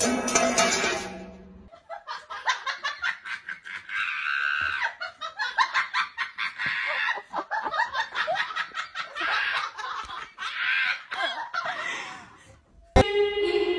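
A person laughing in rapid, breathy pulses, on and off for about ten seconds. Near the end a click and then music.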